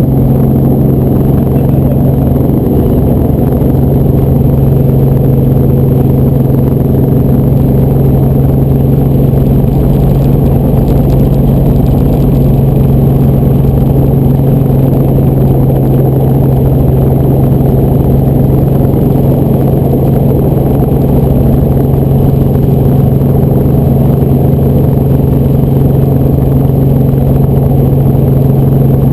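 Helicopter cabin noise: the engine and rotors running in a steady drone, with a strong constant low hum.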